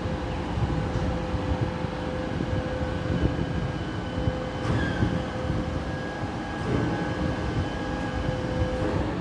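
Garbage truck's machinery running under load at a refuse chute: a loud, steady low rumble with a held whine on top, and a short screech about halfway through.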